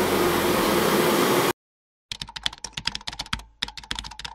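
A steady fan-like noise cuts off sharply about one and a half seconds in. After a short silence comes a keyboard-typing sound effect: fast, uneven key clicks with one brief pause, playing as on-screen text is typed out.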